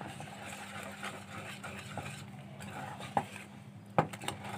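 Wire whisk beating carrot cake batter in a bowl: a steady scratchy swishing, with a few sharp clicks of the whisk hitting the bowl, the loudest about four seconds in.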